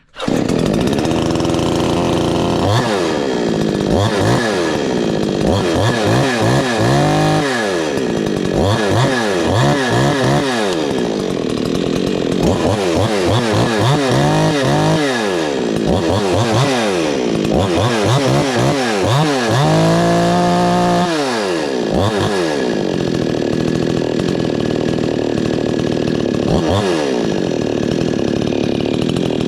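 Gas chainsaw cold-starting on half choke: it catches right away, then is revved up and down over and over before settling to a steady idle, with one more brief rev near the end.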